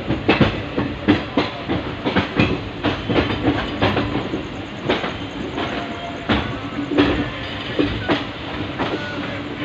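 Wheels of a moving passenger train clattering over the track, heard from an open coach doorway: an uneven run of sharp clacks over a steady rumble.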